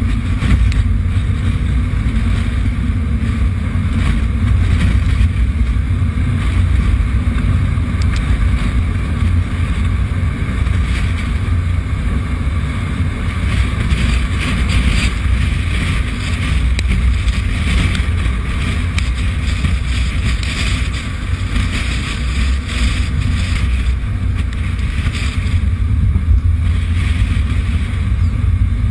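Strong wind buffeting the microphone near a tornado: a loud, steady low rumble with gusty rushing over it.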